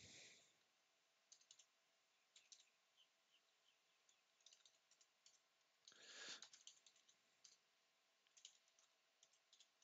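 Faint computer keyboard typing: scattered soft key clicks, with a short soft hiss about six seconds in.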